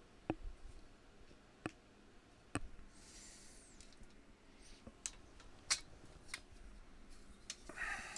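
Scattered light clicks and taps of hand work on small parts, about ten spread irregularly, with two brief scraping swishes: one about three seconds in and one near the end.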